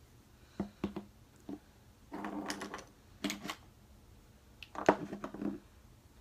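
Clicks and clattering of small plastic makeup items, such as brush handles and compacts, being handled and rummaged through. There are a few single clicks early on, then three short bursts of rattling.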